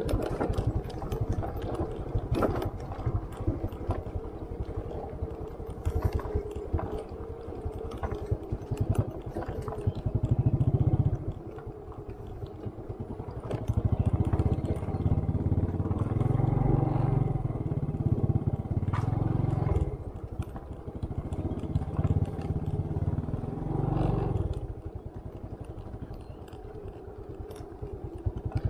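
Small motorcycle running as it is ridden over a rough dirt track, with rattles and knocks from the bumps. In stretches a heavy low rumble swells over it.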